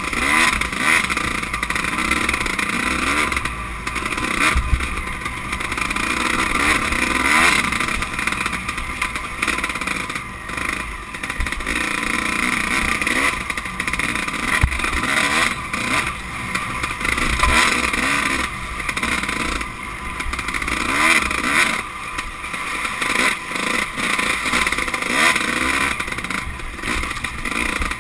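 Dirt bike engine revving up and down over and over as the throttle is worked on a rough, rocky trail, heard close up from the bike itself, with occasional knocks from the bike hitting rocks.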